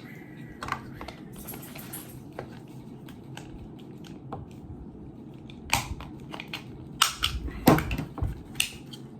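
Hard plastic of a neck-fan housing being pried and flexed apart: scattered sharp clicks and cracks, a few early on and a cluster of louder snaps in the last few seconds, the loudest about two-thirds of the way through.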